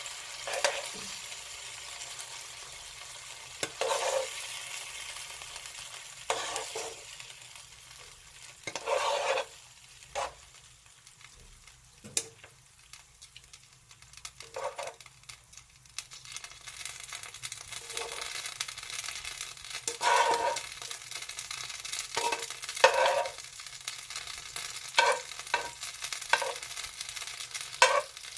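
Meat sizzling as it fries in a pan, with a utensil stirring and scraping against the pan every few seconds.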